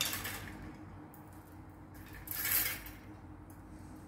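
A bundle of wire clothes hangers clinking and rattling together as they are handled, with a louder jangle about halfway through.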